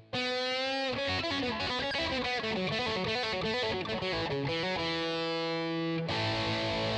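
Electric guitar played through the BOSS BR-900's COSM high-gain lead amp patch, heavily distorted. It opens with a bent note with vibrato, goes into a quick run of notes stepping downward and then a held note, and a thick sustained chord comes in about six seconds in.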